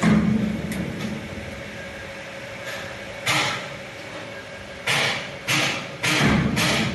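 Waste-cloth recycling machinery running with a steady hum; a loud clunk at the start, then from about three seconds in a series of short bursts of noise that quicken to about two a second near the end.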